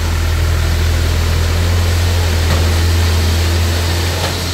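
Diesel engine of a Volvo EW60C wheeled excavator running steadily with a low hum, easing slightly near the end.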